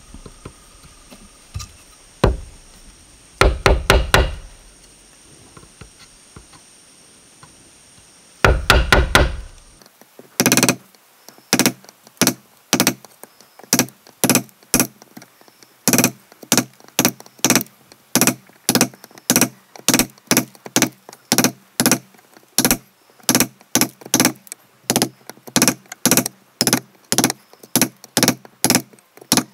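Wood being struck with a tool: a few scattered knocks and two short flurries of blows, then from about a third of the way in a steady run of sharp knocks at about two a second.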